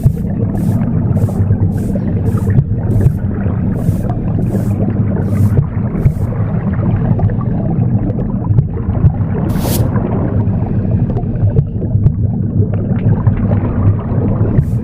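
Womb sound: a steady, low whooshing rumble. A broom sweeps over it in short, hissy strokes about twice a second for the first six seconds or so, then gives one more stroke about two-thirds of the way through.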